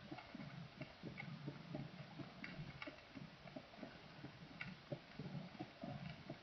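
Heart sounds heard through a stethoscope: a faint run of low, dull thumps repeating with the heartbeat.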